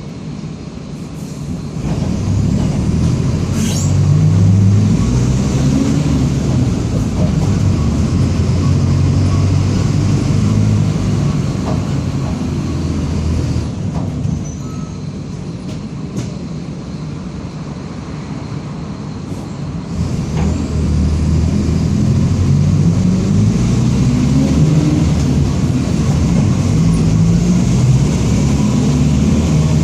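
Mercedes-Benz OF-1722M city bus heard from on board. Its diesel engine pulls and accelerates through the gears with its pitch rising in steps, eases off into a quieter stretch in the middle, then pulls through the gears again near the end, with a few short hisses. The bus is one whose differential growls.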